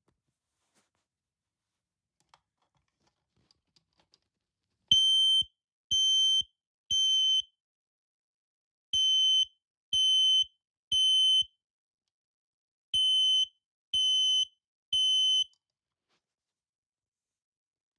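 Ademco smoke detector sounding its alarm under test: three groups of three high-pitched beeps, each about half a second long, with a pause of about one and a half seconds between groups. This is the temporal-three pattern that signals fire. A few faint clicks come just before the first beep.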